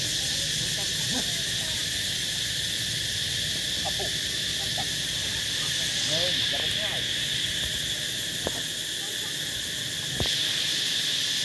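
Steady high-pitched outdoor insect chorus, with faint short rising and falling calls under it and two sharp clicks near the end.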